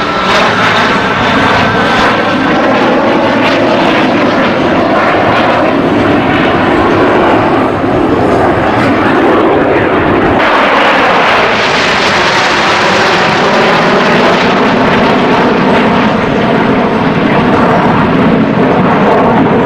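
Snowbirds' CT-114 Tutor jets flying past the crowd, their turbojet engines running continuously with the pitch curving up and down as they pass. About ten seconds in the noise swells sharply and brightens as a jet passes close, then a descending whine follows.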